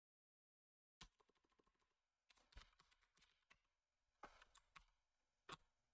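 Faint computer-keyboard typing: scattered single keystrokes and short runs of clicks, starting about a second in after a moment of dead silence.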